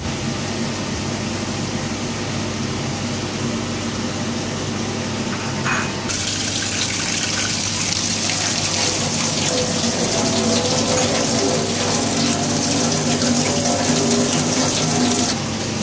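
Steady background hum, then, about six seconds in, a tap gushing into a stainless steel sink, the water splashing over sliced raw meat being rinsed in a plastic colander. The running water cuts off suddenly near the end.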